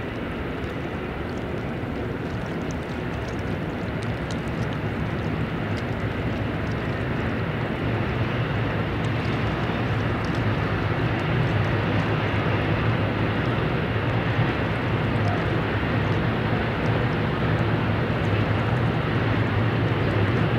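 Low diesel engine hum of an inland cargo ship passing on the river, growing steadily louder as it comes closer, over a steady background rumble that includes the distant container freight train.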